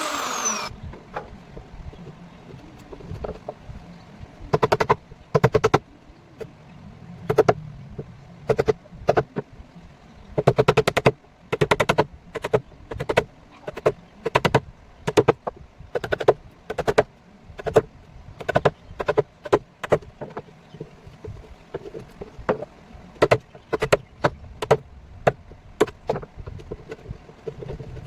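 An electric wood router's motor whines down to a stop in the first second, followed by a long series of irregular sharp knocks, one or two a second and sometimes in quick clusters.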